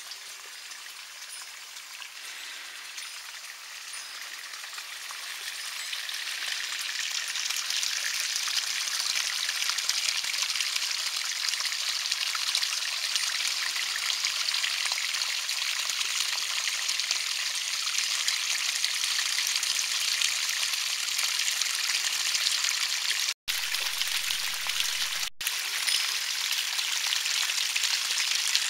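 Water of a small garden stream running and splashing over stones: a steady rushing that swells in over the first several seconds, then holds. The sound cuts out for an instant twice near the end.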